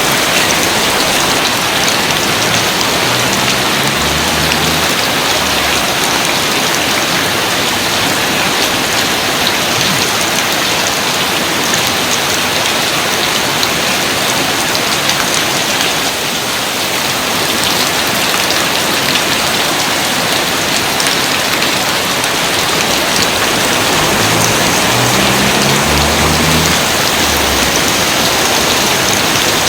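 Rain falling steadily, a dense even hiss of drops with no let-up.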